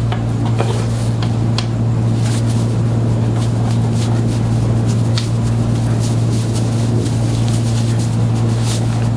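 Steady hum of a small electric motor, running evenly throughout, with faint scattered clicks over it.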